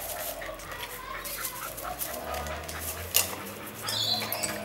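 Fox terrier playing with a child's tricycle: the dog making small vocal sounds among clicks and knocks of the tricycle being pushed about, with one sharp knock about three seconds in.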